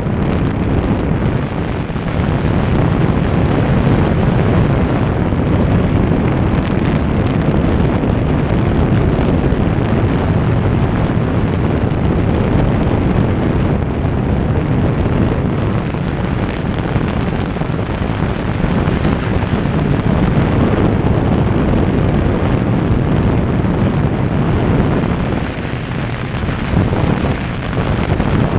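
Jet boat under way: its engine and water jet running loud and steady, with wind buffeting the microphone.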